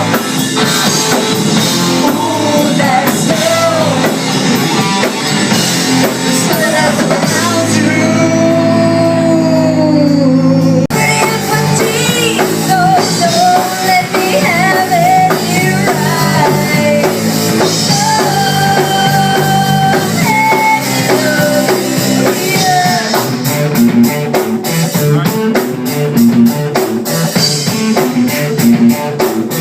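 Rock music with drums, guitar and a singing voice holding long, bending notes; the music changes abruptly about eleven seconds in, as at a cut to another song.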